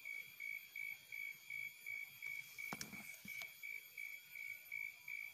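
Insect chirping in an even pulse, a high thin tone repeating about two and a half times a second. A single dull knock sounds about two and a half seconds in, with a lighter click just after.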